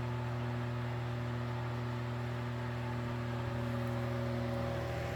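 Knapp-Monarch-built Sears Kenmore 12-inch table fan running steadily on high speed: its shaded-pole motor gives a steady hum and moan, louder than the air whirring through the blades.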